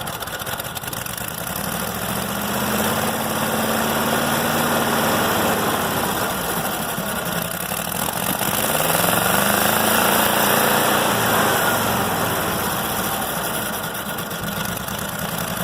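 A small railroad locomotive's engine, running on a newly installed Holley electric fuel pump, runs steadily. It speeds up and eases back twice: about two seconds in, and again just past the middle.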